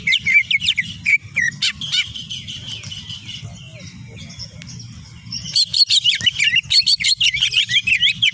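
A cucak ijo (green leafbird) singing a fast, varied song of chirps and sweeping whistled notes. The song is dense at first, thins out for a few seconds in the middle, then comes back loud and busy about five and a half seconds in, over a low steady hum.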